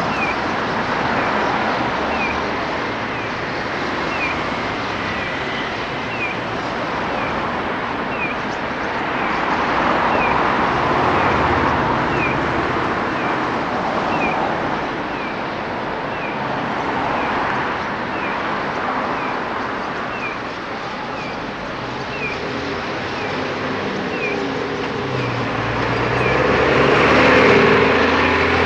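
A flock of white-cheeked starlings calling over steady road traffic. A short high chirp repeats at an even pace, about once a second, and a vehicle passing near the end is the loudest moment.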